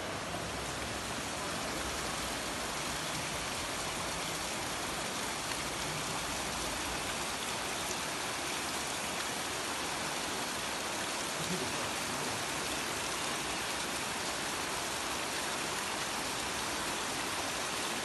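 Steady, unbroken rush of falling water: a dense, even hiss that does not change through the whole stretch.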